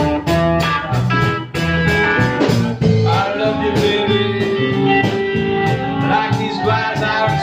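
Live blues band playing, electric guitars to the fore over a steady beat, with long sustained notes that bend in pitch in the middle of the passage.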